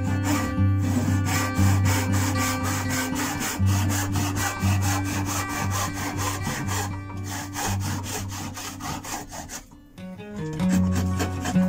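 Brass-backed hand backsaw cutting through oak in quick, even strokes, typical of sawing a tenon, with a short pause about ten seconds in. Acoustic guitar music plays underneath.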